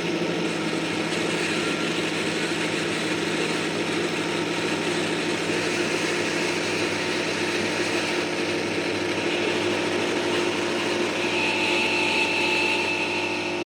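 Experimental noise drone from stompbox effects pedals (fuzz, overdrive, delay): a dense, steady wash of distorted noise over a held low tone. A higher whistling tone comes in about eleven seconds in, and everything cuts off abruptly near the end.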